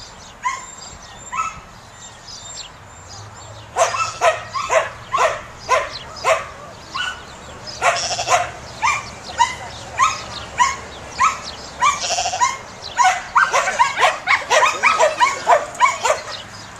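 Samoyed barking and yipping in short, high calls. There are a few calls about a second apart at first, then rapid, nearly non-stop barking from about four seconds in.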